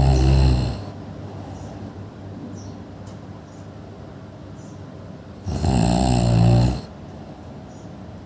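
Loud snoring: one snore ending about a second in and another about five and a half seconds in, each lasting about a second with a low rattle, and much quieter between them.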